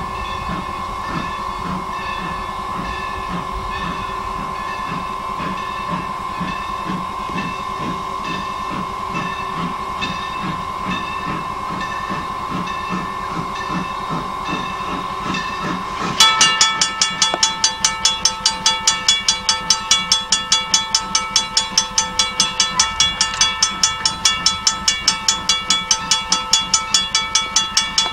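Steam locomotive simmering with a steady high whine and hiss over a rhythmic low pulsing. About 16 seconds in, its bell starts ringing in quick, even strokes, two or three a second, which are the loudest sound.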